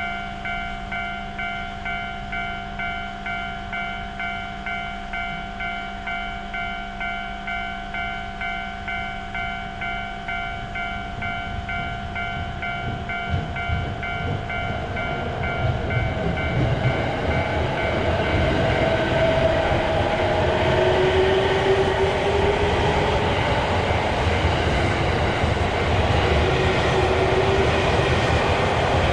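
Japanese level-crossing warning bell ringing in a steady repeating rhythm while a train approaches. The train's rumble and running noise grow from about halfway and become loud, covering the bell, with brief whines as it passes.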